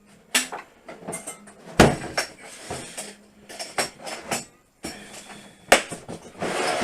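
Hard plastic tool case being opened and handled: a string of clicks and knocks, with two sharp knocks, one about two seconds in and one near six seconds.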